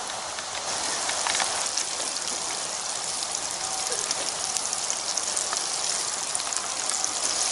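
Breaded catfish chunks deep-frying in hot grease in a cast-iron skillet: a steady sizzle with small crackles, growing louder about a second in.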